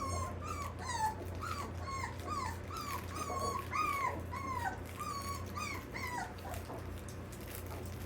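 Old English Sheepdog puppies whining: a run of short, high whines that fall in pitch, about two a second, which die away about two-thirds of the way through.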